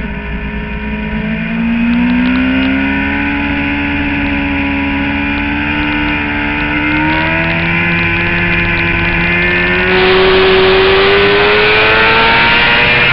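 Suzuki GSX-R750 inline-four engine accelerating hard on a race track, its pitch rising steadily as it pulls through one gear. A rushing wind noise grows louder about ten seconds in.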